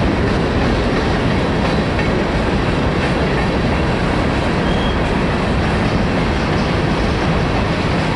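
Enclosed autorack freight cars rolling past close by, their wheels running on the rails in a steady, loud noise.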